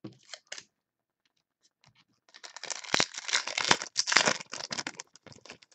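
Crinkling and rustling of a trading-card pack wrapper and cards being handled, a burst of about three seconds starting near the middle.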